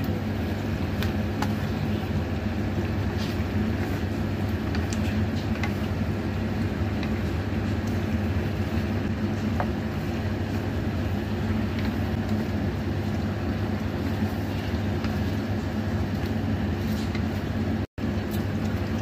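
Turnip and minced fish stir-frying in a wok: a steady sizzle over a low hum, with light scrapes and taps of a wooden spatula against the pan. The sound breaks off for an instant near the end.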